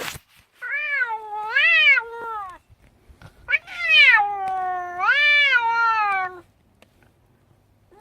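Domestic cat meowing: two long, drawn-out complaining meows, each rising and falling in pitch.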